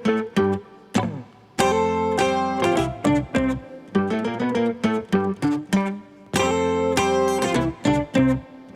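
Background music: plucked acoustic guitar picking notes and ringing chords.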